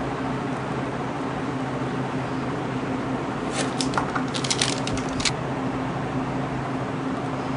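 A steady low electrical hum with a hiss, and a quick cluster of light plastic clicks and taps about three and a half to five seconds in as cream containers are handled.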